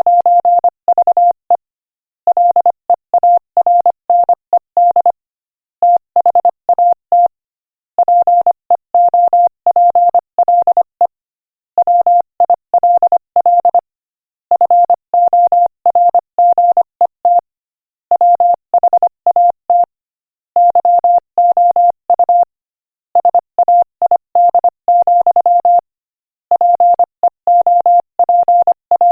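Morse code sent at 25 words per minute as a single steady beep tone, keyed on and off in quick dots and dashes, in word groups separated by short pauses.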